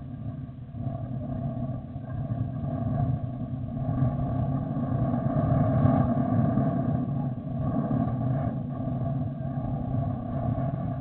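Steady low rumble of distant engines with a few faint steady whining tones above it, swelling slightly about midway.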